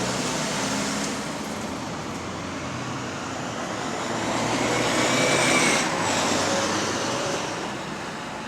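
A road vehicle, likely a bus, driving past: the sound builds to its loudest about five to six seconds in, then fades away.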